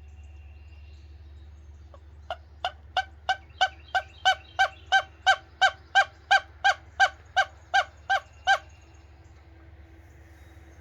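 A bird calling close by: a series of about nineteen loud, honking notes at roughly three a second, building up over the first few and then holding steady before stopping.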